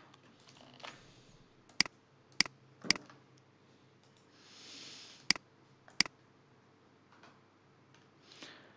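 Five sharp, isolated computer keyboard and mouse clicks spread over several seconds, with a short soft hiss around the middle.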